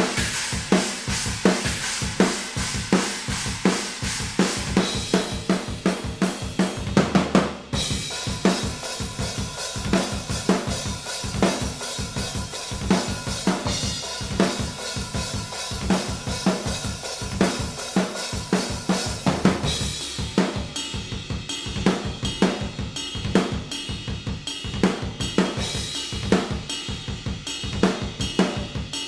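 Acoustic drum kit played in a steady groove of kick, snare, hi-hat and cymbals, heard raw and unprocessed through a combined set of overhead and room microphones. A dense fill about seven seconds in leads into a crash, and from about twenty seconds in the cymbal wash thins out.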